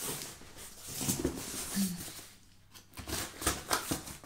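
Cardboard parcel being handled and its packing tape cut open: scattered soft knocks, scrapes and clicks of the box and the cutting tool, with a short lull midway.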